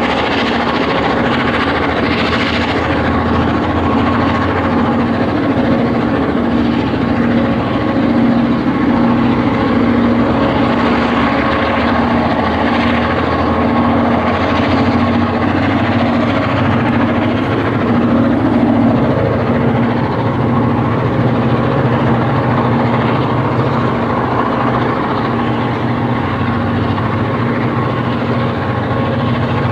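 EMD diesel-electric locomotives of the GM and ALF classes running under power, a loud, steady heavy diesel engine drone.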